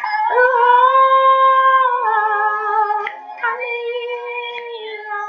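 A woman's voice singing a slow melody in long held notes, stepping down in pitch partway through.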